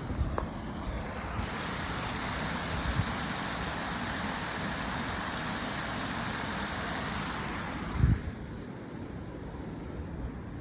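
Wind buffeting the microphone with a low rumble, under a steady rushing hiss that stops abruptly about eight seconds in with a thump.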